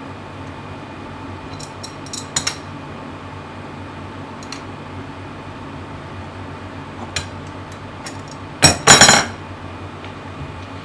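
Metal parts of a cable coiler clinking as a nut is tightened on its threaded shaft: scattered light metallic clicks and taps, then a louder clatter of metal on metal about nine seconds in.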